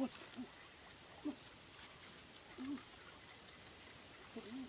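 Insects calling, a steady high-pitched drone at two pitches, with about five short, low animal calls at irregular intervals; the loudest call comes right at the start.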